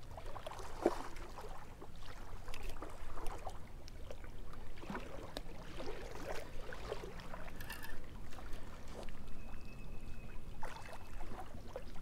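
Small waves lapping at a rocky riverbank, with faint scattered knocks and rustles of rod and reel handling while a fish is fought.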